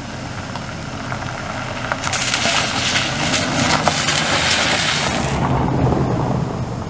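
A vehicle driving on a dirt trail, its engine running low under a crackling noise of tyres rolling over gravel and stones. The crunching swells for about three seconds in the middle, then eases.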